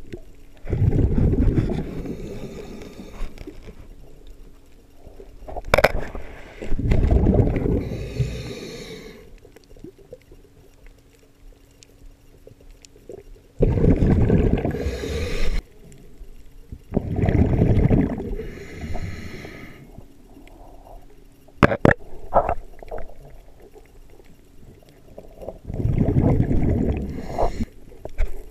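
A diver breathing underwater: bursts of exhaled bubbles every few seconds, each lasting one to two seconds, with a few sharp clicks in between.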